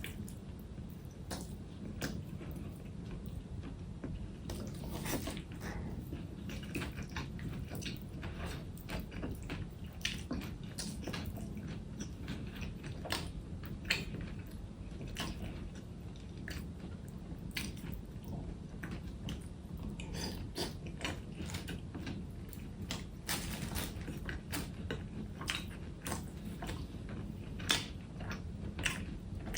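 Close-up eating sounds: chewing and biting with many small irregular clicks and crunches, over a low steady hum.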